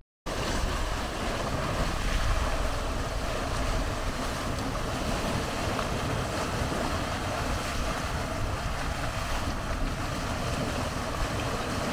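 Steady rushing wind buffeting the microphone, with a heavy low rumble, cutting in abruptly just after the start.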